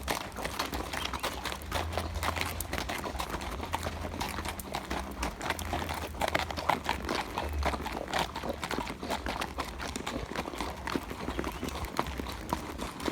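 Horse's hooves clip-clopping, an uneven run of knocks, over a steady low rumble.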